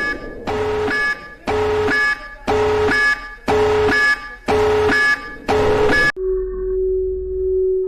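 Synthesized emergency-alert alarm: a harsh multi-tone beep pulsing about once a second, then switching abruptly about six seconds in to a steady, lower, held tone.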